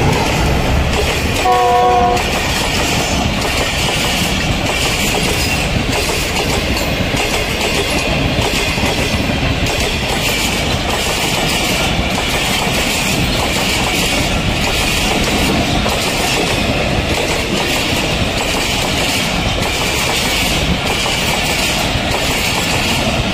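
Pakistan Railways GEU40 diesel-electric locomotive hauling an express through a station without stopping. It gives a short horn blast about a second and a half in, then its long rake of passenger coaches passes at speed with continuous wheel and rail noise.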